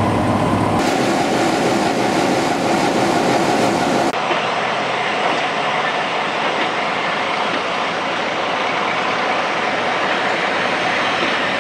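Class 45 'Peak' diesel-electric locomotive and its train moving along the track: a steady low engine hum at first, then, after a change about four seconds in, the even rumble of wheels rolling on the rails with some clickety-clack.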